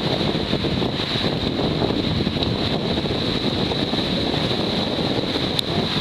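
Wind buffeting the microphone over small waves breaking and washing in the shallows: a steady rushing noise.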